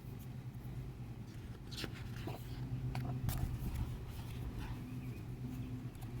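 Pages of a heavy hardbound photobook being turned and handled: a few soft paper rustles and slides about two and three seconds in, over a steady low hum.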